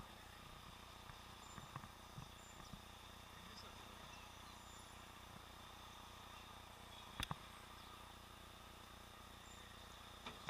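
Near silence: faint, muffled hiss and hum of street sound heard through a helmet camera's sealed waterproof housing, with a sharp knock about seven seconds in.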